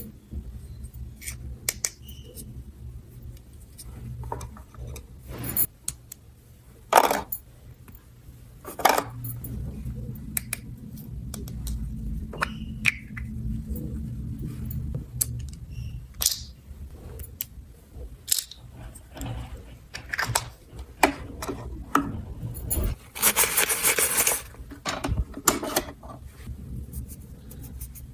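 Small plastic toy pieces being handled, with scattered clicks and taps, a low hum for a few seconds around the middle, and a longer rustle, like packaging, about 23 seconds in.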